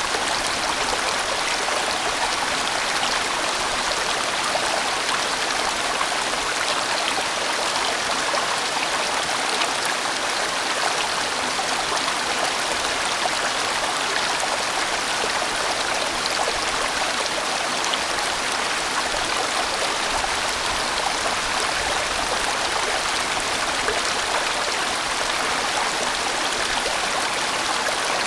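A sizeable valley stream flowing: a steady, even rush of water.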